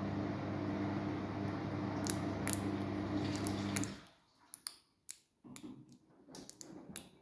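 Samsung washing machine running with a steady hum that stops suddenly about four seconds in, with a series of sharp clicks and taps before and after it stops.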